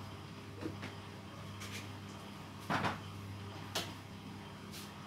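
A few separate knocks and clatters of kitchen things being handled and put away, over a steady low hum. The loudest comes about two and a half seconds in.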